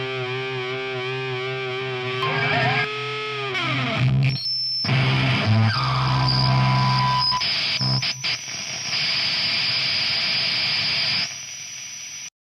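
Distorted electric guitar ending a rock song: a held note with vibrato slides down in pitch, then gives way to a wash of noisy feedback and effects that cuts off abruptly near the end.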